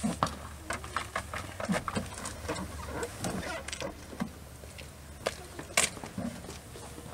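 Microfiber towels wiping a truck's paint, with footsteps on a wet driveway: a string of irregular short rubs and taps, the sharpest about six seconds in.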